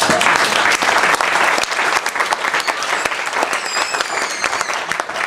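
Roomful of seated guests applauding, loudest at first and slowly easing off, with a brief high warbling whistle about three and a half seconds in.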